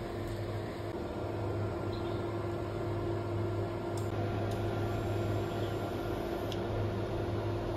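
Steady electric hum of a kitchen appliance's fan motor, running without change, with a constant low drone and a steady higher tone over a soft whoosh of air.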